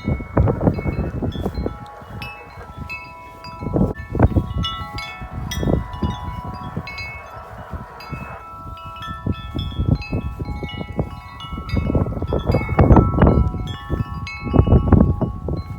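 A 36-inch Corinthian Bells wind chime rings continuously, its many tuned tones overlapping as the clapper keeps striking. Repeated strong gusts of wind buffet the microphone.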